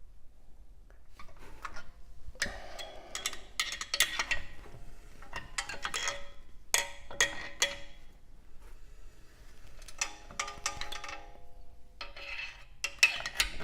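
Tesla front brake rotor turned by hand with the wheel off, giving bursts of metallic scraping and clanking with a ringing tone, about four times. The owner suspects a rock or bolt caught between the rotor and the brake dust shield.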